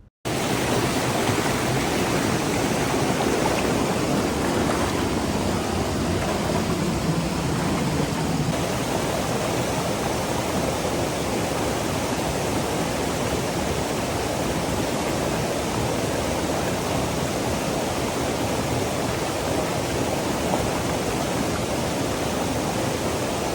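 Fast mountain stream running high after heavy monsoon rain: a steady, loud rush of water.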